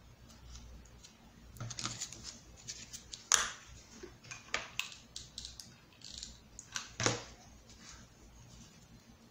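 Irregular small clicks, taps and rustles of hands handling EVA foam petals and craft pieces on a cutting mat, with two sharper clicks about three and seven seconds in.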